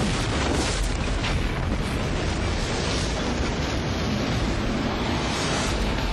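A steady, loud rumbling roar, dense and even, with no sharp onset.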